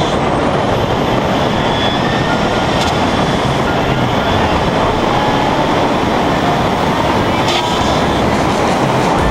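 Steady rush of wind and tyre roar from a car driving at highway speed, with wind blowing hard across the outside-mounted camera's microphone.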